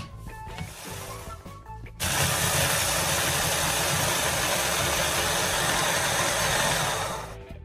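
Electric hand-blender chopper attachment switched on about two seconds in, its blades grinding biscuits into crumbs with a steady, loud whirring for about five seconds before it winds down.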